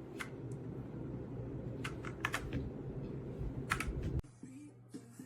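Keys pressed on a Redragon K668 mechanical gaming keyboard: a handful of scattered key clicks over a steady low background noise. The sound cuts off abruptly about four seconds in.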